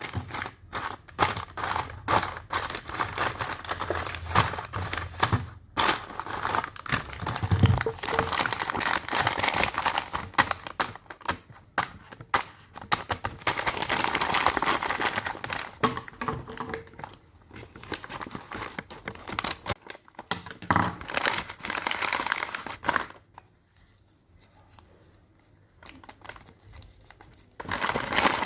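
A blind bag's packaging being handled, crinkled and torn open, with a quieter pause late on before more crinkling.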